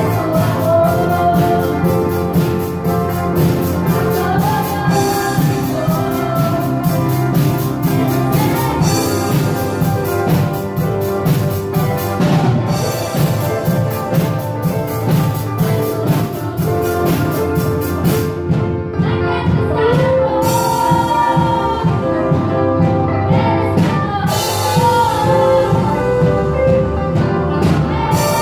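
A live church band playing a song: drum kit, keyboard, electric and acoustic guitars, with voices singing the melody.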